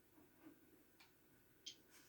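Near silence with a few faint, sharp ticks at uneven spacing.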